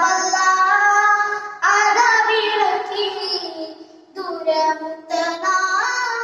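A boy singing an Islamic devotional song solo, in several phrases of long, wavering held notes with short breaths between them.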